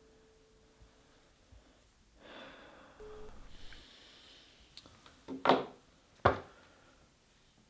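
A phone's steady line tone after the call ends, fading out about a second in, then a man breathing heavily: a long breathy exhale, and two sharp loud breaths about a second apart near the end.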